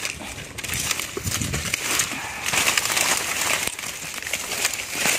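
Dry leaves, bamboo litter and twigs rustling and crackling as someone pushes through undergrowth, with leaves brushing the microphone.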